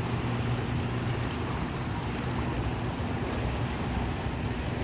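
Turbine discharge water churning and boiling up below a hydroelectric dam: a steady rushing rumble with a low steady hum underneath.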